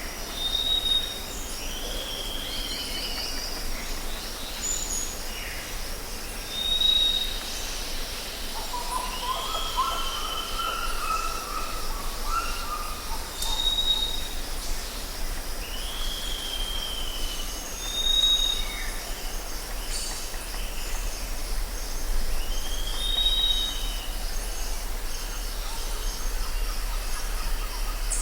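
Rainforest ambience: assorted bird calls, including a short high whistle repeating every four to five seconds and a lower warbling run of calls near the middle, over a steady high insect drone.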